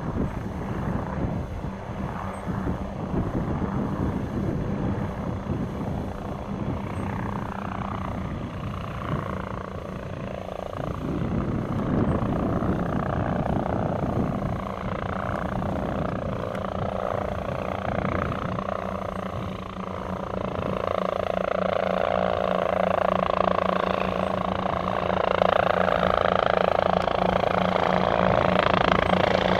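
Two Aerocopter AK1-3 two-seat piston helicopters in flight: the steady hum of their piston engines and the chop of their rotors. The sound grows louder from about two-thirds of the way in as they approach.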